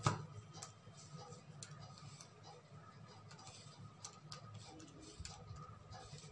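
Faint, irregular clicks of calculator keys being pressed, roughly one a second, over a low steady room hum, as a motor's full-load current is worked out.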